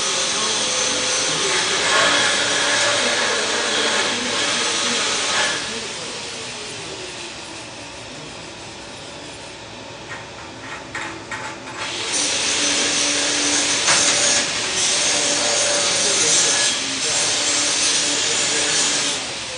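Arc welding crackle, in two long runs about six seconds apart, with a few sharp clicks in the quieter gap between them.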